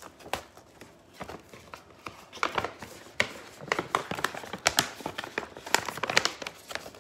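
Paper gift bag and tissue paper being handled and folded, crinkling and rustling in irregular crackles that get busier after about two seconds.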